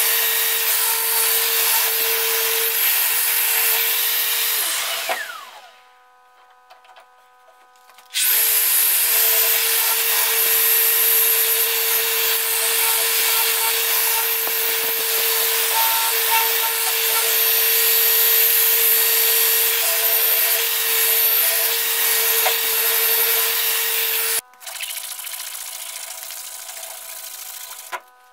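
Festool Rotex RO 150 sander sanding a wooden knife handle: a steady motor whine under the rasp of the disc on wood. It winds down about five seconds in and is nearly silent for a few seconds. It then cuts back in abruptly and runs until near the end, when it stops, leaving a quieter steady hum.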